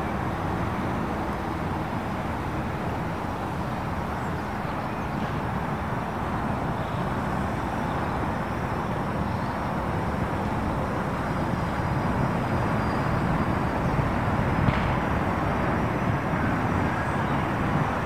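Steady noise of road traffic with lorries, an even rumble without distinct events.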